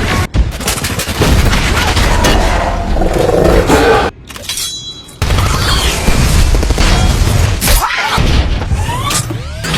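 Loud action-film sound effects: heavy booms and impacts layered with music. The sound cuts out suddenly about four seconds in and returns a second later, with sweeping pitch glides near the end.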